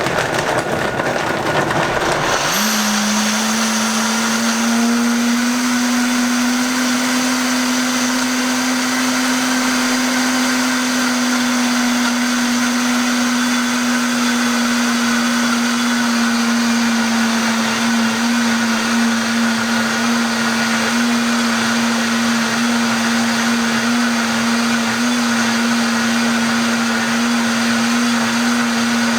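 Vitamix 7500 blender running at speed, blending a thick green smoothie of kale and frozen fruit. About two and a half seconds in, the rough churning gives way to a steady whir with a constant hum.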